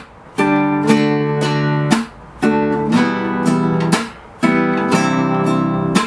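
Nylon-string classical guitar strummed in a down, up, slap, up pattern, one chord after another (G, then D, then Em). Each chord is held for about a second and a half, and there is a short break before the next chord.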